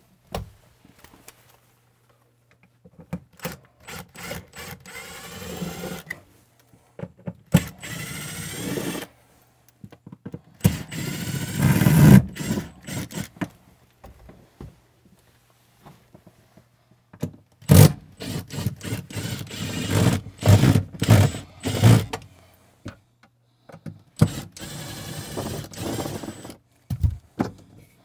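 Scraping, rattling and knocking as the trim piece over the slide-out's jamb is pried off and handled, in separate bursts with pauses between, and a quick run of knocks about two thirds of the way through.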